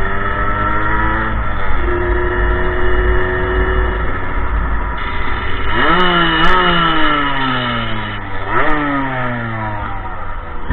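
Motorcycle engine heard from the rider's own bike, running steadily at first, then revved up sharply twice, about six and about nine seconds in, its pitch falling slowly after each as the bike slows. Low wind rumble on the microphone underneath.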